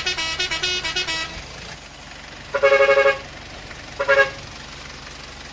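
A toy truck's electronic horn honking twice, a longer honk then a short one, over a steady low motor hum. In the first second a quick electronic jingle of short stepping notes plays and stops.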